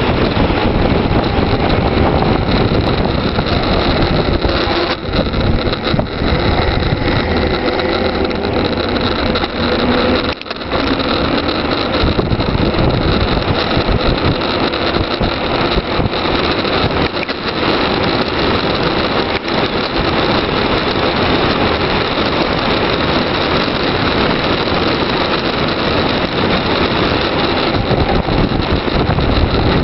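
Steady wind rushing over the microphone of a camera riding on a bicycle during a fast downhill run on asphalt, with a low road rumble underneath. The level dips briefly about ten seconds in.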